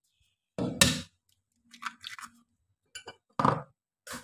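An egg being cracked against a plastic mixing bowl: a few short knocks and shell crunches, the loudest about a second in.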